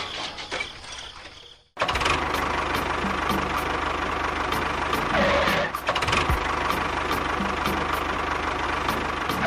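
Small motor of a DIY mini construction-machine model running steadily with a regular light ticking. It starts after a brief silence near two seconds in.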